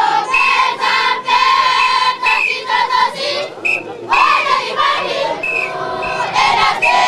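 A group of children singing together in short, held phrases, with brief breaks between them.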